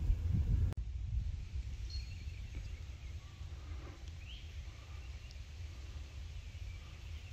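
Outdoor ambience: a steady low rumble with a few faint, scattered bird chirps. A louder rumble in the first second stops abruptly at an edit.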